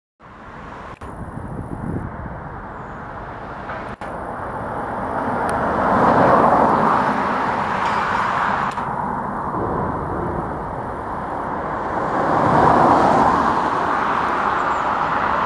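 Road traffic passing on a main road, a steady hiss of tyres and engines that swells twice as vehicles go by, about six and thirteen seconds in.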